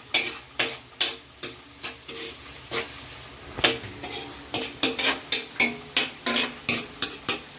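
Metal spatula scraping and knocking against a wok about two to three times a second as chopped onion and meat are stir-fried in oil, with a light sizzle underneath. The strokes pause briefly a little past two seconds in.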